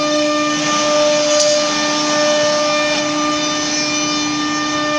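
Automatic-tool-change CNC router's spindle running with a steady whine, over a steady rushing noise.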